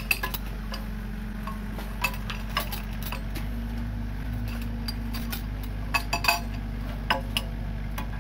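Steel lifting chains clinking sharply a few times as they shift against the excavator bucket and a hanging concrete U-drain section, over the steady low drone of the Komatsu PC45 mini excavator's diesel engine running.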